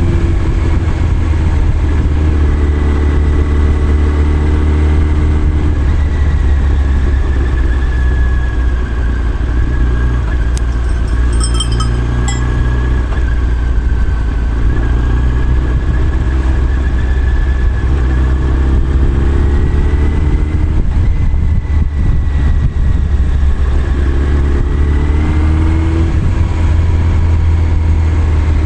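Motorcycle engine running under way with wind noise; its pitch dips and rises a few times as the speed changes. A brief high ringing comes about eleven seconds in.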